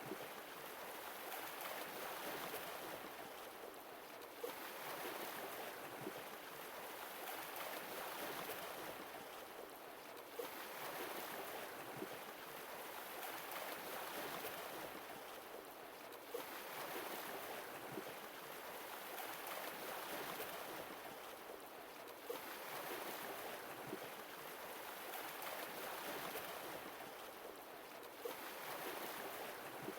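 Sea waves washing in and drawing back, each wave swelling and fading about every six seconds, with a short sharp tick at the start of each swell.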